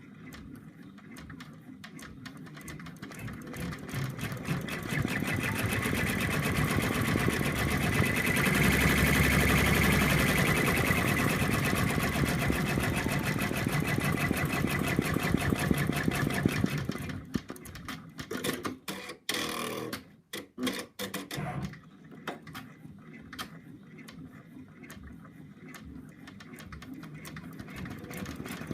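Computerized embroidery machine stitching out a design: a rapid, even run of needle strokes. It grows louder over the first few seconds, stops and starts briefly about two-thirds of the way in, then runs on more quietly.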